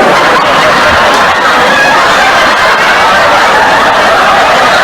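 Canned audience laughter: a dense, continuous laugh track from many people that starts and cuts off abruptly.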